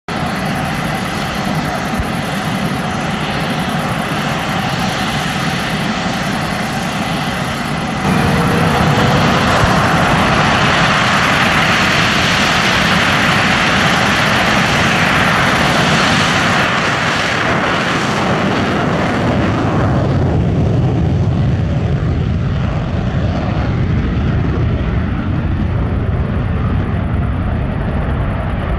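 Saab Gripen E fighter's single F414 turbofan jet engine running: a steady loud rush with a thin high whine while it taxis, getting suddenly louder about eight seconds in as it makes its takeoff run, and fading in the low end after about twenty seconds as it climbs away.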